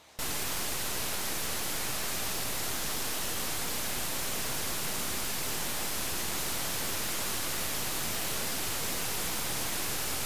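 Steady, even hiss like static, spread evenly from low to high pitch and unchanging in level, with no motor whine or grinding rhythm standing out. It starts abruptly just after the first moment.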